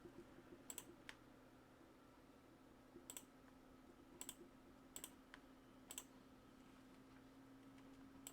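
Faint computer clicks, about six spread over several seconds, some in quick pairs, over a faint steady low hum.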